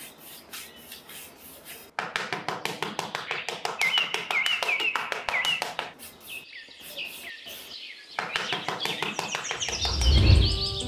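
Small metal hand trowel scraping and smoothing sand in quick strokes, with birds chirping in short repeated calls. Near the end a deep low boom swells up and is the loudest sound.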